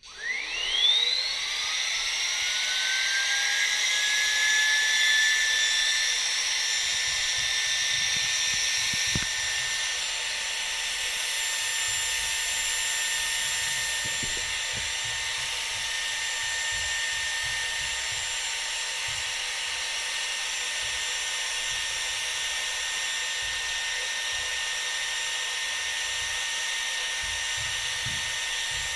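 Xiaomi Shunzao Z1 cordless stick vacuum cleaner switched on at low speed. Its motor spins up with a rising whine in about a second, then runs with a steady high-pitched whine.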